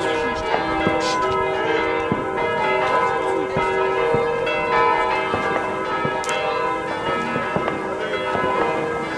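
Church bells ringing, many bells struck in overlapping succession with their tones hanging on. A few short distant cracks of fireworks come through, one about a second in and one a little after six seconds.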